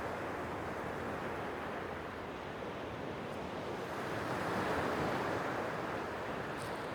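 Sea waves washing against the shore, a steady wash that swells louder past the middle as a wave rolls in.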